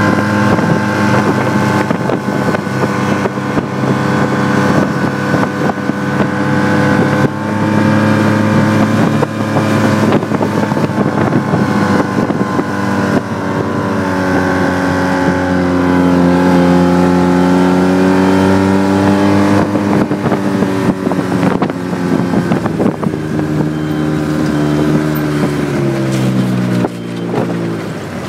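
Ski-Doo snowmobile engine running steadily at speed, its pitch dipping and recovering midway, then falling in steps near the end as the level drops.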